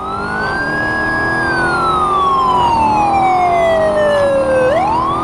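Police car siren wailing: the tone rises, holds high, falls slowly for about three seconds, then sweeps sharply back up near the end. A low steady hum runs beneath it.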